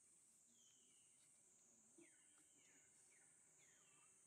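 Faint outdoor ambience: a high, steady insect drone that slowly swells and fades, with a bird giving a run of about five short falling chirps from about halfway in.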